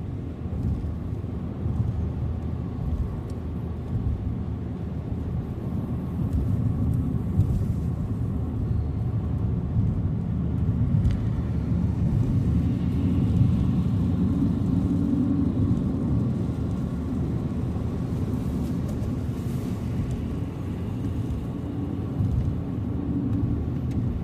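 A car being driven along a highway: a steady low rumble of engine and tyre road noise.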